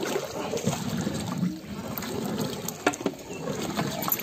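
A long-handled ladle stirring rice through watery mutton biryani gravy in a large metal pot, the liquid sloshing and churning. A couple of short sharp knocks come about three seconds in and near the end.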